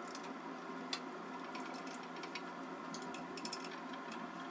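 Faint, irregular clicks and light taps as a hand Phillips screwdriver turns screws to mount a coat hanger into wood, over a steady faint hum.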